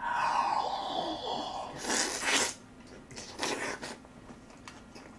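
A long slurp as a big mouthful of braised kimchi and short rib is sucked in off a fork, followed by two short, loud, breathy snorts through the nose.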